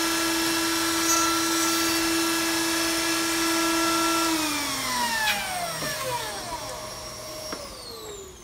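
Router on a pantograph router jig running at a steady high pitch together with a dust-extraction vacuum, then switched off about four seconds in and spinning down with a falling whine. The vacuum runs on a few seconds longer, then shuts off and winds down near the end.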